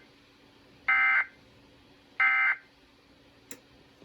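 Two short, buzzy bursts of EAS SAME digital data tones, about a second and a half apart: the end-of-message code that closes an Emergency Alert System broadcast. A faint click follows near the end.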